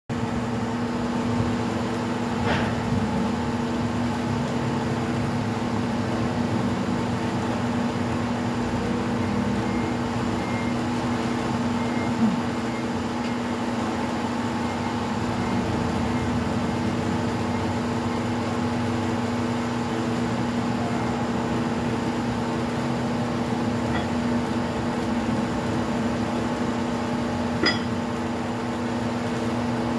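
Steady electric machine hum of running shop equipment, several constant tones over a low noise. A few short knocks sound through it, the sharpest about twelve seconds in and another near the end.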